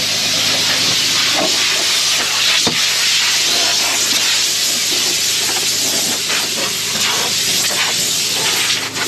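Compressed air hissing steadily from an air nozzle, blowing dust out of a combine's cab.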